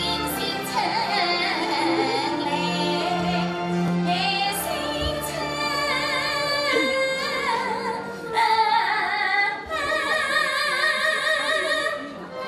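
A woman singing an operatic-style Chinese song into a microphone over instrumental accompaniment, holding a long note with wide vibrato in the second half.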